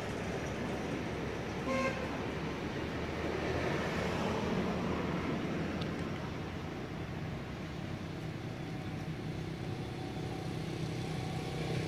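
Steady background of road traffic, with one short horn toot about two seconds in.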